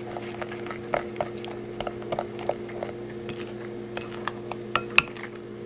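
A spoon stirring flour into wet pumpkin cookie batter in a glass bowl, with irregular clicks and taps of the spoon against the glass. A steady low hum runs underneath.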